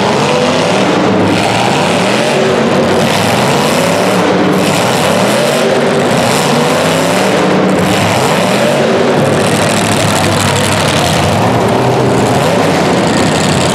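Several racing engines running hard around a track, their pitch rising and falling again and again as they accelerate, lift and pass, over a constant roar.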